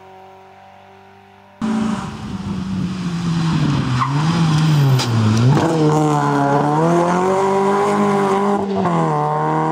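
Small-capacity rally car engine: faint and distant for the first second and a half, then suddenly loud and close. The note drops as the car slows into a bend, climbs as it accelerates out, dips briefly at a gear change near the end and rises again, over tyre noise on a gritty road.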